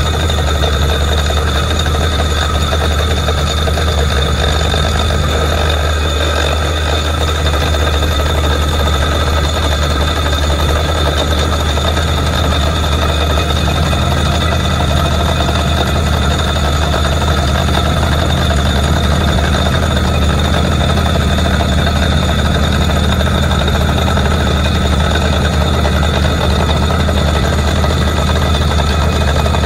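Truck-mounted borewell drilling rig running at work: a steady, loud drone of its engine and air compressor, with a high whine on top.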